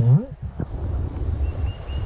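Low rumbling water and wind noise on a camera held at the creek's surface, opening with a short muffled vocal sound from the snorkeler. Near the end, a faint run of about six short high chirps.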